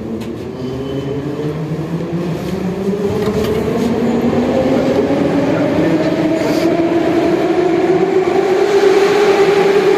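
Metro train pulling away. Its traction motors whine in a steadily rising pitch as it speeds up, growing louder, with a few clicks near the start.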